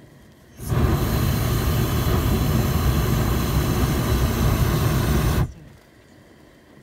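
Hot air balloon's propane burner firing in one blast of about five seconds, starting and cutting off suddenly.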